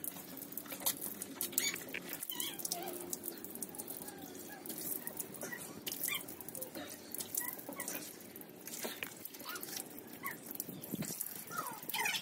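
Water from a wall tap splashing onto a concrete floor as hands and face are washed for wudu, in many small irregular splashes and drips. Birds chirp briefly now and then.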